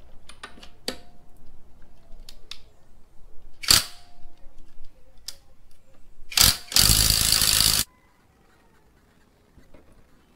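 Cordless impact wrench on a car wheel's lug nuts, loosening them: a few light clicks, two short bursts, then about a second of continuous hammering that stops abruptly.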